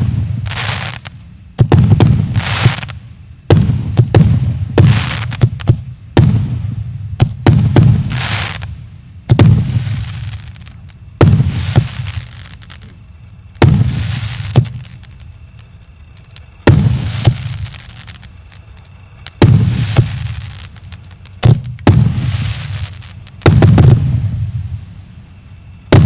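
Multi-shot consumer fireworks cake firing its shots in series: loud bangs every one to three seconds, each with a low booming tail. The shots come further apart after the middle.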